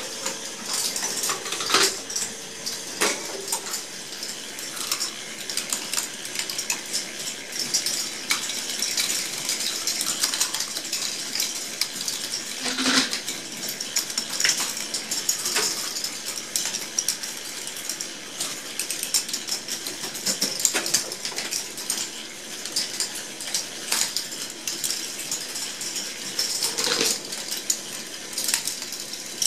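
K'nex ball machine running: plastic balls rolling and dropping along plastic tracks and lifts, a continuous clatter of small clicks and rattles with occasional louder knocks.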